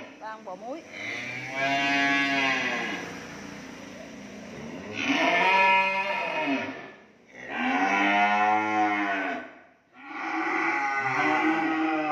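Cattle mooing: four long, drawn-out moos one after another, each rising and then falling in pitch.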